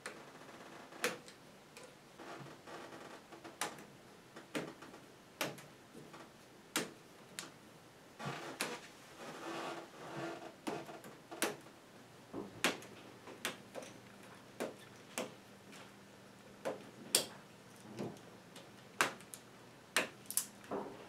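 Plastic K'NEX rods and connectors clicking and snapping as they are worked loose by hand, one sharp click about every second at an uneven pace, with a stretch of rattling near the middle.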